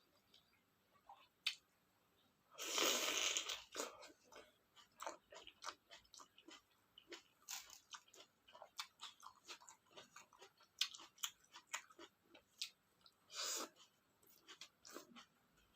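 Close-miked eating sounds: steady chewing with many small wet clicks, and two louder crunchy bites, one about three seconds in and a shorter one near the end.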